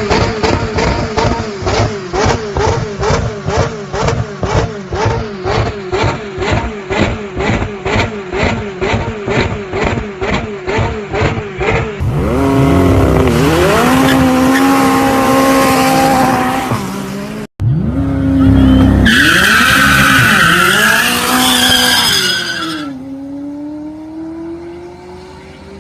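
McLaren 600LT twin-turbo V8 exhaust, first pulsing in a steady rhythm about twice a second. Then come hard accelerations with the pitch climbing and dipping at each upshift, and a high squeal of tyres in the middle. It ends with a quieter run where the engine pitch rises steadily.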